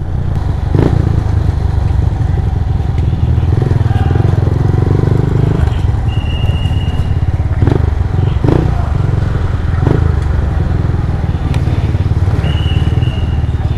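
Motorcycle engine running steadily under way, with a few knocks over rough ground and a short high tone twice.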